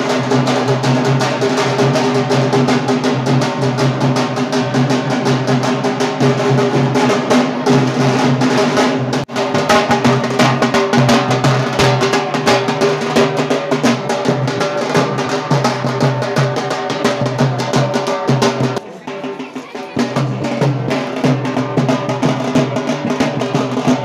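Fast, continuous drumming on a large stick-beaten drum, over steady sustained pitched tones from the band. It drops out for a moment about nine seconds in and goes quieter for about a second near the nineteen-second mark.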